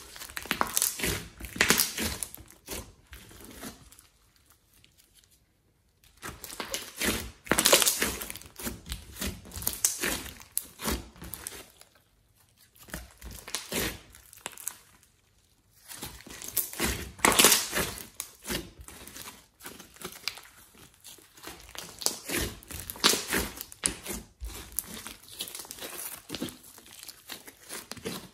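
Hands kneading, squeezing and folding a thick glossy slime mixed with clay: dense sticky clicks and pops come in bursts of a few seconds as the slime is worked, broken by a few short quiet pauses.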